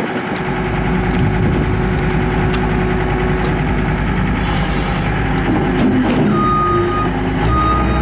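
2006 John Deere 328 skid steer's 82 hp turbo diesel running under load. Near the end its backup alarm sounds two long, steady beeps as the machine reverses.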